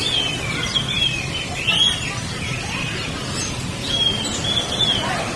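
Many caged songbirds chirping and calling, with short whistled notes overlapping, over a steady low hum of background noise.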